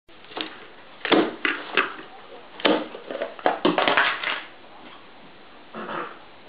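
A ferret working the lid off a plastic sweet tub and digging inside it: a series of sharp plastic knocks and clatters, bunched between about one and four seconds in, with a softer bump near the end.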